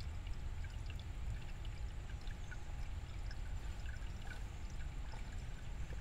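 Shallow stream of water running over rock slabs and between boulders: a steady trickling, babbling flow with many small bubbly plops.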